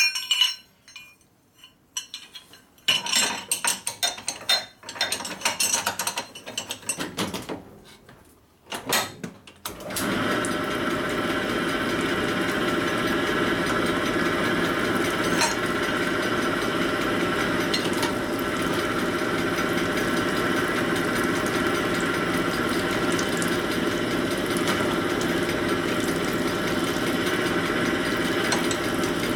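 Metal clinks and rattles as a connecting rod and tooling are handled for about ten seconds, then a connecting-rod honing machine starts and runs steadily, its spinning mandrel honing out the big end of a Harley Twin Cam connecting rod that is slightly out of round.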